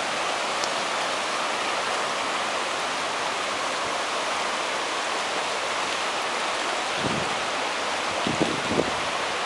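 Steady rushing of a rain-swollen creek in flood, its muddy water running high and fast past the bank. A few low thumps come near the end.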